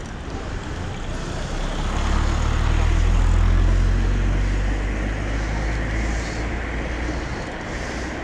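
A small Fiat Punto hatchback passing close alongside, its engine and tyre rumble swelling from about two seconds in and fading away after the middle. Steady wind and road noise on the microphone throughout.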